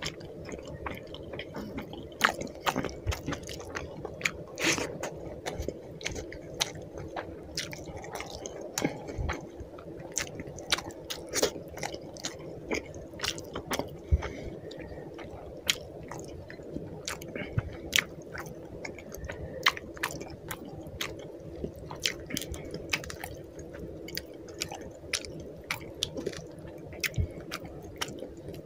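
Close-miked eating sounds: chewing and wet mouth clicks on rice and pomfret curry, with soft squelching as fingers mash rice into the curry. There are many sharp, irregular clicks.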